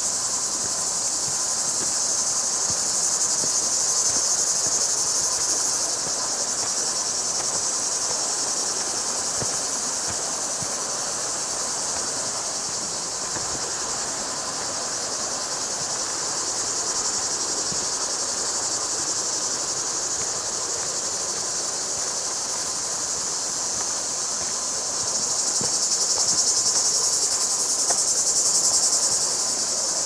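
Chorus of insects giving a steady high shrill buzz that swells louder a couple of seconds in and again near the end.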